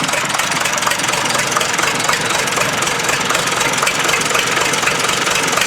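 Rebuilt Case 207 D four-cylinder diesel engine in a backhoe, running steadily with an even diesel clatter.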